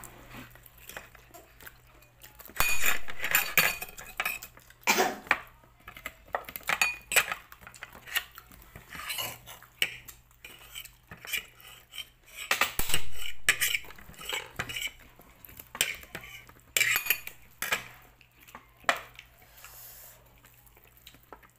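Dishes and tableware clinking, knocking and scraping on a table during a meal, in a string of sharp knocks with longer scraping bursts, loudest about three and thirteen seconds in.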